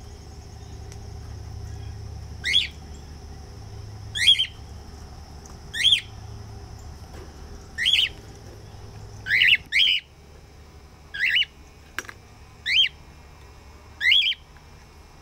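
Pet cockatiels giving their loud contact call over and over: a short sweeping whistle-squawk about every one and a half to two seconds, with two calls close together about halfway through.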